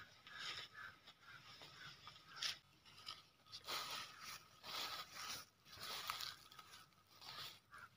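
Faint, irregular crunching and rustling of grass, in short bursts every half second to a second.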